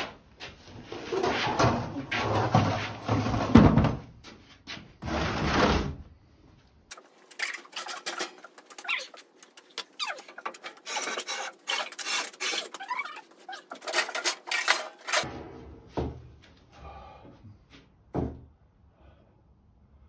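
Things being handled and shifted about in a workshop. For the first six or so seconds there is loud rubbing and scraping, then a quicker run of clicks, knocks and clatter, thinning out to scattered clicks near the end.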